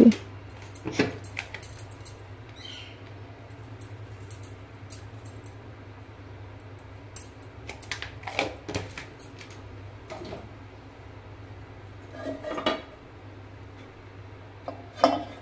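Scattered clinks and taps of steel kitchenware, a spoon knocking against spice tins and the steel mixing bowl, as spice powders are added to raw chicken for marinating. The louder clinks ring briefly and come in small clusters, over a low steady hum.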